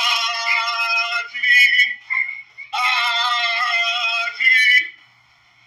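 A voice singing in two long, high, wavering phrases with a short break between them, thin and without any low end.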